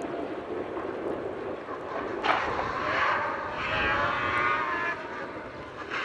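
Fouquet Mazda off-road rally buggy's engine running hard across a field, its revs rising and falling through gear changes. There is a sharp crack about two seconds in, and the revs climb again in the second half.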